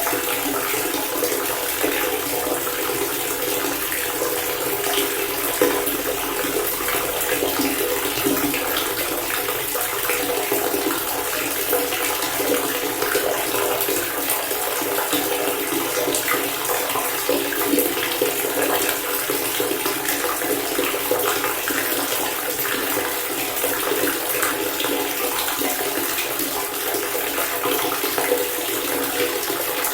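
Water pouring in a steady stream from a faucet fountain, a continuous even splashing with no breaks.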